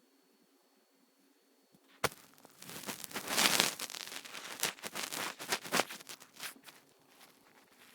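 Rustling and scratching with many sharp clicks as a kitten scuffles with a hand, starting with one sharp tap about two seconds in, loudest soon after, and dying away near the end.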